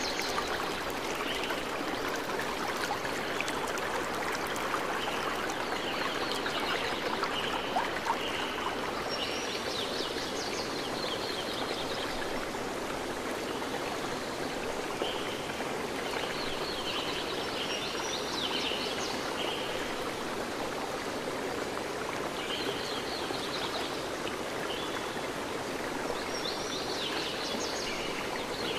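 Steady rushing of a stream, with small birds chirping in short clusters every few seconds.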